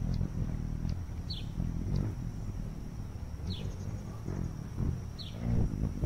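A hovering hummingbird's wings make an uneven low hum, and three short, high chirps fall quickly in pitch, a second or two apart. A faint, steady high whine runs underneath.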